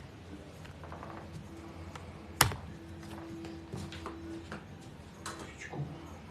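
A single sharp, loud crack about two and a half seconds in, amid faint scattered clicks and taps.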